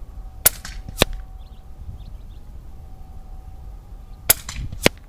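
Umarex Gauntlet .30 cal PCP air rifle firing 44 grain Hades pellets: four sharp cracks in two pairs, the two cracks in each pair about half a second apart and the pairs about three seconds apart.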